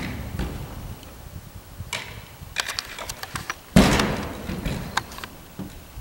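Ice-tool picks and shafts clicking, scraping and knocking against plastic climbing holds and the wall panels as a dry-tooler climbs. The loudest is one heavy knock with a deep thud about four seconds in.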